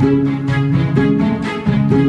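Instrumental background music: bowed strings playing short chords repeated in a steady rhythm, a new chord about every half second.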